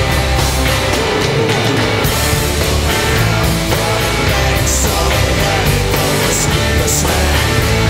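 Rock band playing live on stage, loud and steady, with a bass line and drums.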